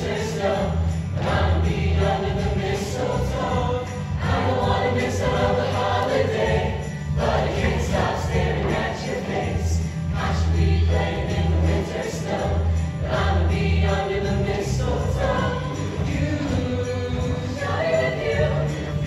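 A mixed show choir singing a Christmas number in harmony over an instrumental accompaniment with a steady bass line and a jingle-bell beat.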